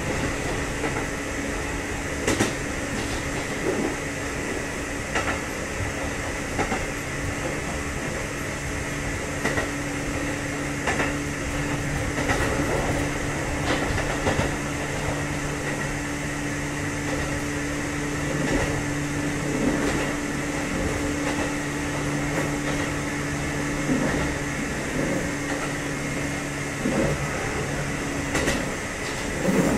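Kotoden 1070 series electric train running, heard from inside the car: a steady hum with a lower tone joining about eight seconds in, and wheels clacking over rail joints every few seconds.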